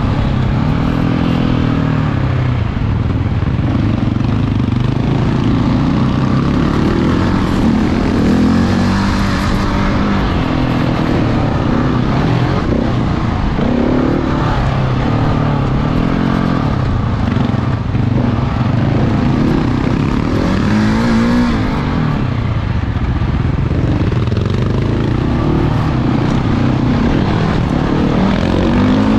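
Big single-cylinder four-stroke motorcycle engine being ridden, its revs rising and falling over and over.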